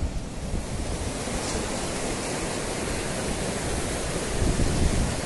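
Steady rush of flowing water, with wind gusting on the microphone in low rumbles.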